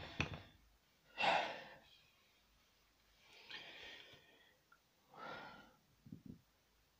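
Hand spray bottle misting a tarantula's tub of substrate: three short hissing squirts about two seconds apart.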